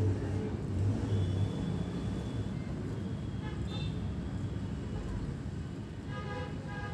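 Road traffic rumbling in the background, with a few short horn toots, one of them near the end.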